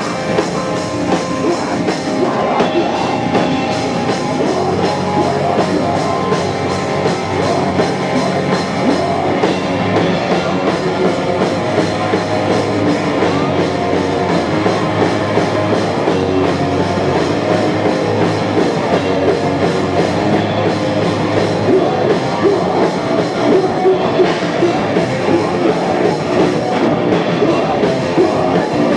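Live hardcore band playing loud and steady: distorted guitar, electric bass and a drum kit.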